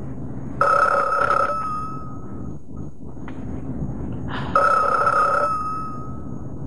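Push-button desk telephone ringing twice, each ring about a second long and about four seconds apart, over a low steady hum.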